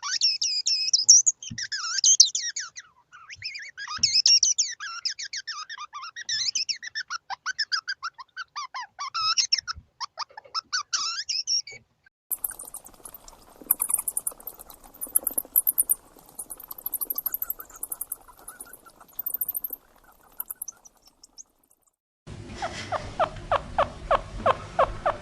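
Small pet rodents vocalising in three passages. First come rapid high-pitched chirping squeaks for about twelve seconds. Then comes a sharper, very high clicking chatter over a faint hiss. Near the end there is a fast run of rhythmic pitched calls, about five a second.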